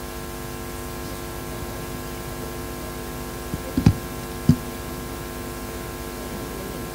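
Steady electrical hum from a public-address system, with a few dull thumps around four seconds in.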